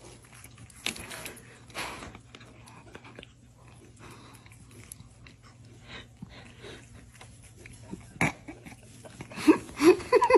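Quiet rustling and small clicks, a sharp knock about eight seconds in, then near the end a cat breaks into a quick run of short, pitched meows.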